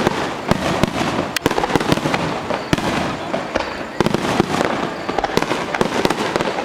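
Fireworks going off in rapid succession, a dense run of sharp cracks and pops overlapping one another.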